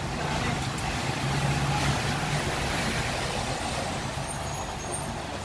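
Hong Kong double-decker tram running slowly along its track: a steady low motor hum over the rumbling noise of wheels on rails, swelling a little in the first half.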